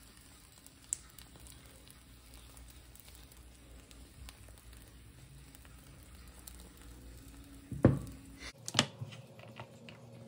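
Egg omelette sizzling faintly in a frying pan while a spatula works its edge, with light scrapes and ticks. Near the end, two sharp knocks about a second apart.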